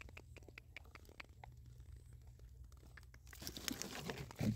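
Hands rummaging through dry leaf litter, twigs and soil, making many small crackles. About three seconds in it turns to a louder rustle and crinkle as a hand pushes through grass and a plastic bottle, with a short thump near the end.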